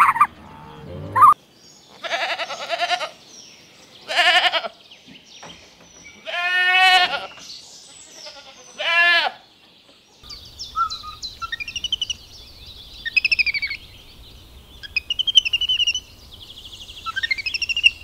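A goat bleating four times with a quavering cry, the third bleat the longest. From about ten seconds in, high bird chirps follow over a low steady hum.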